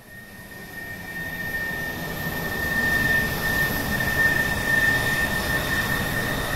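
Jet-like whoosh sound effect of an animated outro: a rushing noise with a steady high whine that swells over the first three seconds and then holds.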